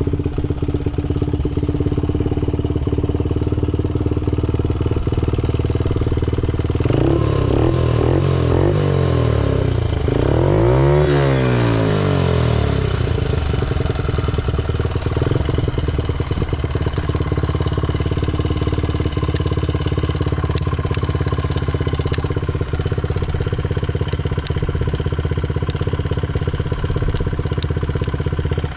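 Honda Ape 50's small four-stroke single-cylinder engine running at idle. About seven seconds in the throttle is blipped several times, and the revs rise and fall before it settles back to a steady idle. The seller presents it as revving up well with no abnormal noise.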